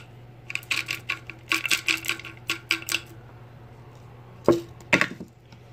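Small hard objects being handled and clattering: a quick run of light clicks and rattles lasting a couple of seconds, then two sharp knocks about half a second apart near the end.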